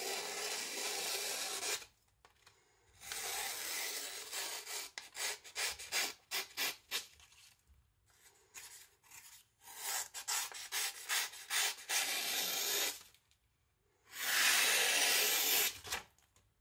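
Freshly sharpened knife edge being tested by cutting, in scraping strokes: two long strokes first, then runs of quick short strokes, and another long stroke near the end.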